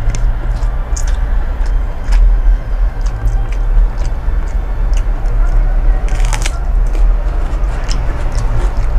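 A person eating and chewing fish and rice: scattered small mouth and food clicks, with a louder crunch about six seconds in, over a steady low rumble.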